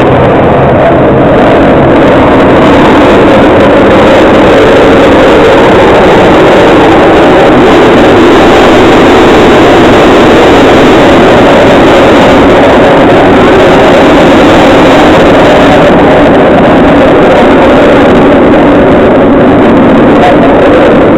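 Loud, steady roar of aircraft engines, overloading the microphone, with no clear rise or fall.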